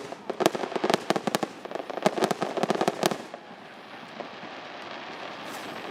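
Fireworks crackling: a rapid, dense string of sharp pops for about three seconds, which then stops and leaves only steady background noise.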